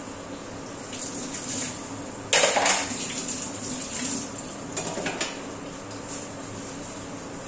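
Kitchen utensils and pots clattering: one loud clatter about two seconds in, then a few lighter clinks over the next three seconds, over a steady hiss.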